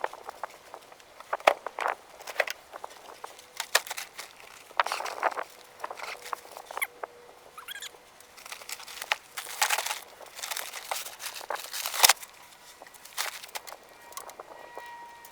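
Irregular rustling, scraping and clicking of things being handled, with two sharp knocks, one early and one about twelve seconds in.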